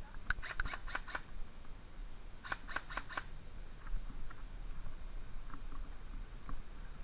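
Airsoft gun firing two quick strings of five or six sharp clacking shots, about two seconds apart.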